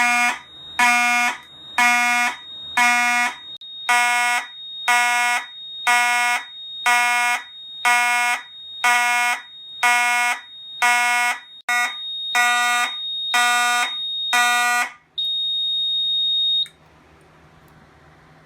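Simplex 2901-9838 fire alarm horn sounding in alarm after a pull station is pulled: a harsh buzzing blast about once a second, some fifteen times. A steady high tone runs beneath it, carries on alone for a second or so after the horn stops, then cuts off.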